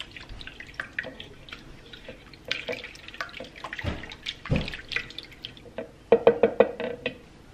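A silicone spatula stirs a watery yeast, sugar and warm-water mixture in a mixing bowl: liquid sloshing, with small clicks and scrapes of the spatula against the bowl. Near the end comes a quick run of sharp taps.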